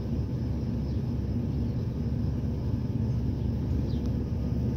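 Steady low rumble with no clear events, and a faint short high falling squeak about four seconds in.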